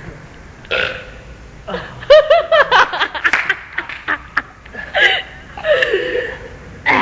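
A person burping loudly on purpose, several burps one after another.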